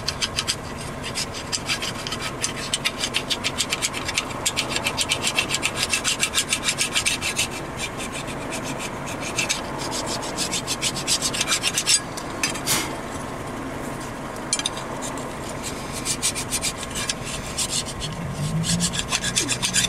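Hand file rasping rust scale off the pad abutments of a brake caliper bracket in quick, even back-and-forth strokes, heaviest in the first half, with one sharp click a little past the middle. The scale is being cleaned off so that the new pads cannot bind in the bracket.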